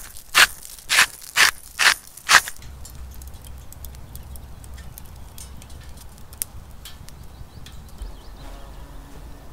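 A hand pepper mill being twisted: six crunchy grinding strokes, about two a second, over the first two and a half seconds. After that, a low wind rumble and faint scattered crackles from a small wood fire in a camp stove.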